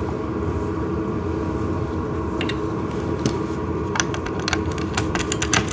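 Cam-lock fasteners being twisted into place to lock a wooden panel: quick clicks and light knocks that begin about two and a half seconds in and come thick and fast from about four seconds, over a steady background hum.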